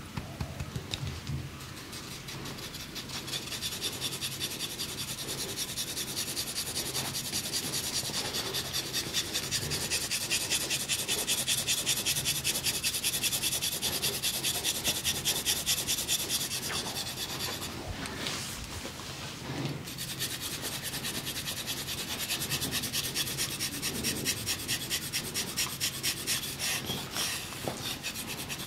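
Brisk massage rubbing of hands over skin: a dry, rasping swish repeated in quick, even strokes. It breaks off for a couple of seconds about two-thirds of the way through, then carries on.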